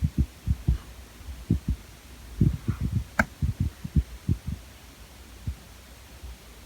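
Soft, irregular low thuds, about a dozen, with one sharp click about three seconds in.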